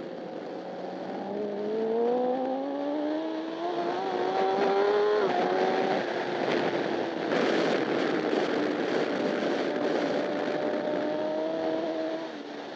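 Honda CBR1000RR superbike's inline-four engine under hard acceleration, heard onboard: the pitch climbs for about five seconds, drops suddenly at an upshift, then holds high revs with a rush of wind noise and falls away again near the end.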